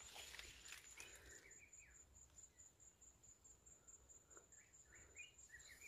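Faint, steady high-pitched insect trill, pulsing several times a second, with a few short bird chirps about a second and a half in and again near the end.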